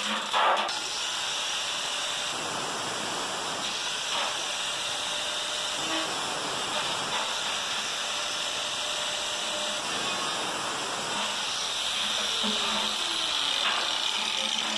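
Electric angle grinder running steadily with its cutting disc biting into the thin perforated steel of a washing-machine spin drum.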